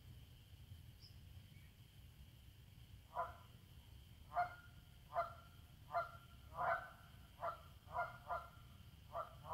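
Canada geese honking: a run of about ten honks, one or two a second, beginning about three seconds in, over a low steady background rumble.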